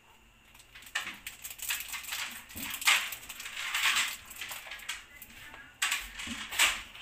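A small plastic sachet of ground black pepper crinkling and rustling in the fingers as the pepper is shaken out, with a few sharp clicks and taps among the rustling.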